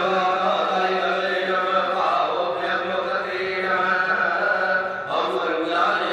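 Hindu devotional mantra chanting: a melodic chanted vocal line over a steady low drone, pausing briefly about two and five seconds in.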